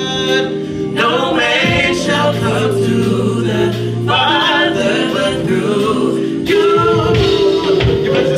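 Gospel worship music: several voices singing together over sustained instrumental chords and a steady beat.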